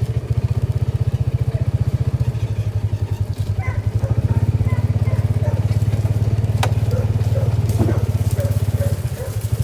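Small vehicle engine running steadily under way, heard from on board, a fast low pulse with a slight change in its note a couple of seconds in and a single sharp click about two-thirds of the way through.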